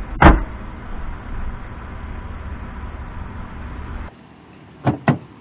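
Minivan hood slammed shut with one loud bang, over a steady low rumble. Near the end, two quick sharp clicks a fraction of a second apart from the driver's door latch being opened.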